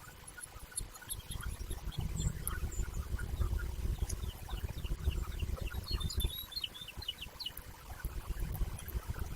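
Pine siskins twittering with many short, high chirps, with a quick run of notes about five to seven seconds in. A steady low rumble runs underneath.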